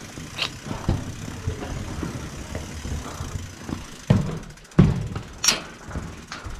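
Irregular knocks and rattles of a mountain bike being walked by hand, with two louder thumps about four and five seconds in.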